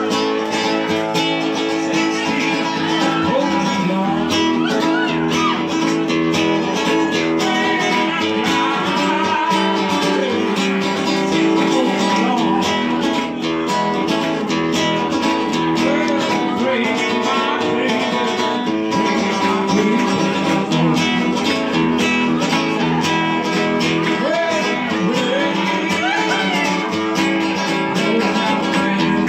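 Live music led by a strummed and picked acoustic guitar, played at a steady level.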